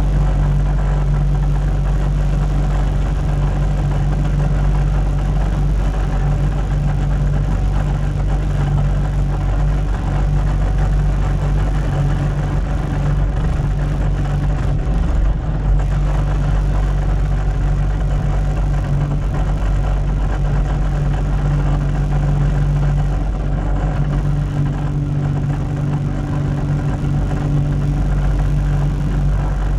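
Diesel engine of heavy construction equipment running steadily at constant speed, heard close up, with a slight change in tone late on.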